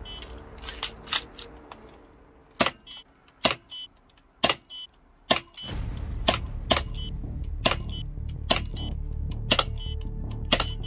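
Toystar Glock 17 air-cocking spring toy pistol firing BBs, a run of sharp snapping shots and clicks about once a second, coming quicker later on, several followed by a short high beep. Background music comes in about halfway.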